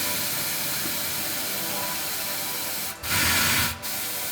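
Compressed air hissing steadily from a pneumatic tire changer's bead breaker as it breaks the tire's bead loose from the rim, with a louder rush of air about three seconds in.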